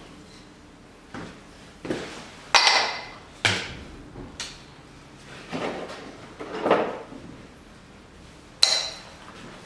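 Irregular knocks and clatter of parts and tools being handled and set down on a workbench, about eight in all, a couple with a brief metallic ring.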